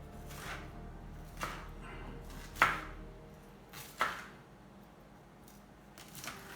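Kitchen knife chopping broccoli on a cutting board: five separate strikes spaced about a second apart, the loudest about two and a half and four seconds in.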